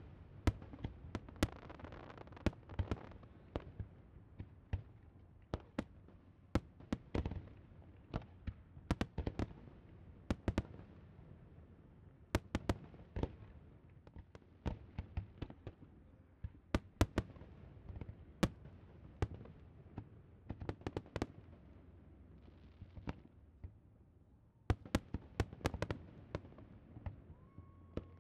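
Aerial fireworks display: shells bursting in an irregular string of sharp bangs, several a second at the busiest moments, over a continuous low rumble. The bangs thin out a little past two-thirds of the way through, then come thick again in a quick cluster.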